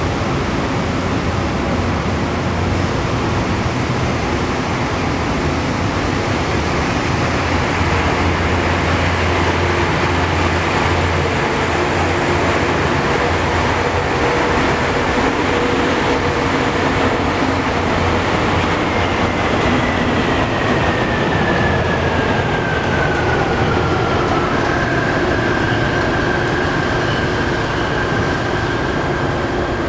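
Bombardier Innovia Monorail 300 train running on its elevated concrete guideway: a steady rumble of rubber tyres and motor hum. About two-thirds of the way through, a thin whine falls in pitch and then holds steady.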